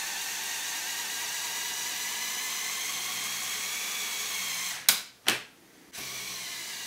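LEGO Power Functions motor whining steadily as it drives the excavator arm's shafts and gears, swinging the stick section. It stops just before 5 seconds with two sharp clicks. After a brief pause a motor runs again, a little quieter, tilting the bucket.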